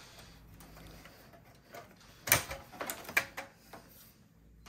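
Plastic and metal parts inside an opened Macintosh II case clicking and knocking as hands work around the drive tray and its cables. There is one sharp click about halfway through, then a few lighter clicks and rattles.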